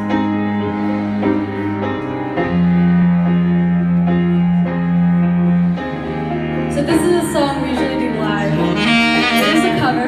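Live acoustic band playing a slow ballad intro: piano under long held cello notes. About seven seconds in, a saxophone line joins with bending, ornamented phrases.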